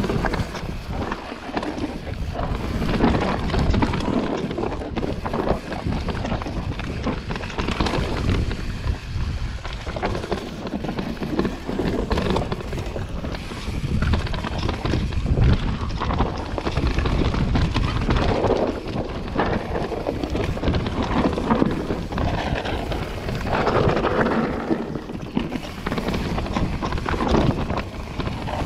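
Enduro mountain bike descending a rough dirt trail at speed: wind rushing over the microphone, tyres on dirt, and the bike rattling and knocking over roots and rocks.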